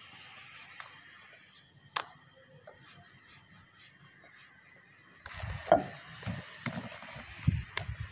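Wooden rolling pin rolling dough out on a marble rolling board: a soft, steady rubbing, with a sharp knock about two seconds in. From about five seconds in come louder low thuds and several sharp knocks as the pin works the dough against the stone.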